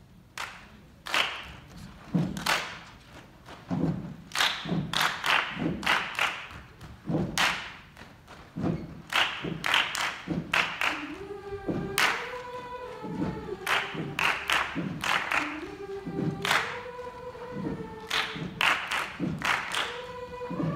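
Choir body percussion: rhythmic hand claps and chest pats in a repeating pattern. About halfway through, a vocal quartet starts singing a cappella over it.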